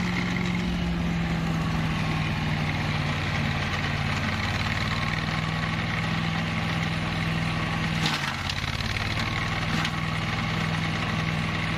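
Engine of a flail mower running steadily at an even pitch, with two brief sharp knocks about eight and ten seconds in.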